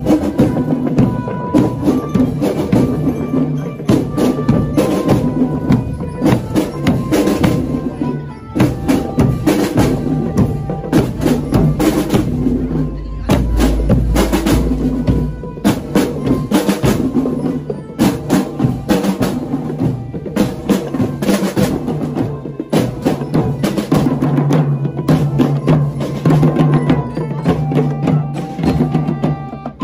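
Marching drum band playing: snare and bass drums beating a brisk, steady marching rhythm, with a high melody line stepping over the drums.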